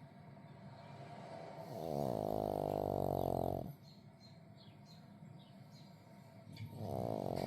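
Pug snoring loud: a long snore of about two seconds begins about two seconds in, then quieter breathing, then another long snore starts near the end.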